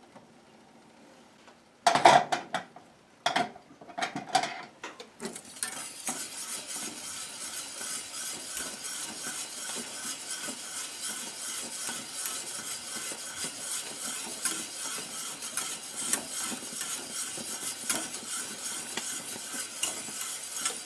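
A few loud ringing clinks of metal utensils against a pot, then from about five seconds in a wire whisk beating steadily and fast in a pot of milk mixture, a dense scraping rattle.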